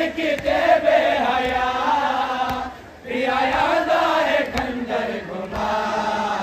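A noha, the Shia lament for Imam Husain recited in Muharram, chanted in long held, wavering phrases. It breaks off briefly about three seconds in, then resumes.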